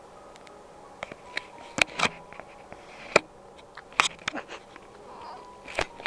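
Silver chinchilla Persian cat snoring in its sleep: short, sharp breath noises coming roughly every two seconds.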